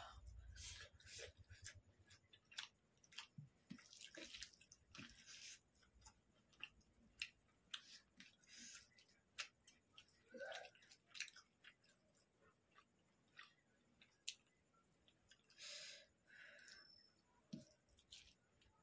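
Faint eating sounds: scattered wet mouth clicks and smacks from chewing, and soft squishing as fingers mix rice and chicken curry on a metal plate.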